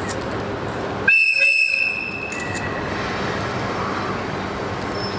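An ED75 electric locomotive's whistle gives one sharp, high-pitched warning blast of about a second, starting about a second in, over steady background noise.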